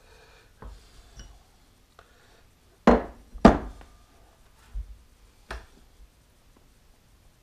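Metal clicks and knocks from handling a dividing head while its hole circle plate is taken off, with two sharper knocks close together about three seconds in.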